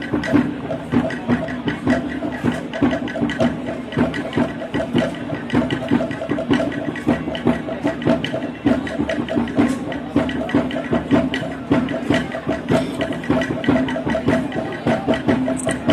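Maengket dancers singing a steady, droning chant in chorus over a regular beat from a tambor drum.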